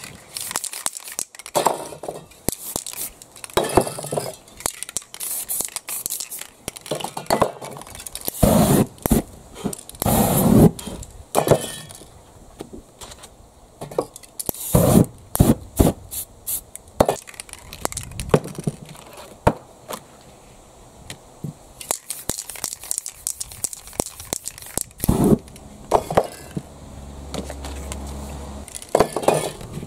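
Aerosol spray paint cans hissing in short, irregular bursts as paint is sprayed, with clinks and clicks from the cans being shaken and handled between bursts.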